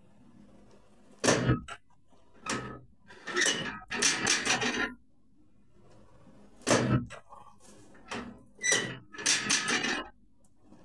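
Chiropractic adjustment of a spine stiffened by ankylosing spondylitis: sharp thrust sounds with bursts of rapid cracks and clicks. They come in two rounds, about a second in and about seven seconds in, each a single sharp hit followed by a cluster of quick cracks.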